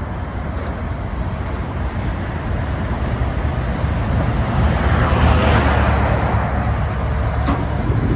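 Freight train of grain hopper wagons rolling along the track with a steady low rumble. A lorry passes close on the adjacent road, swelling the noise to its loudest about five seconds in; a single sharp click comes near the end.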